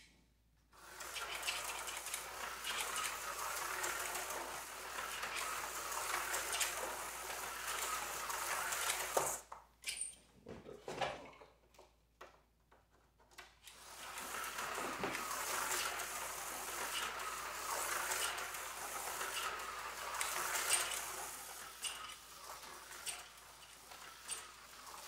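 Small Aurora slot car running laps of a plastic oval track, its tiny electric motor whirring. It stops about 9 seconds in, with a few clicks and knocks, then runs again from about 14 seconds in and fades away near the end.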